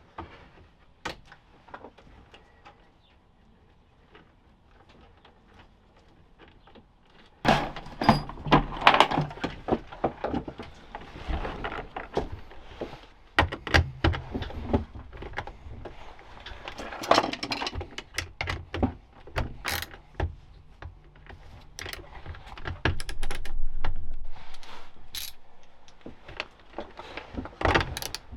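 Hand tools and small metal parts clicking, knocking and clattering while an electrical box is taken apart. There are only a few scattered clicks at first, then from about seven seconds in a busy run of sharp knocks and rattles.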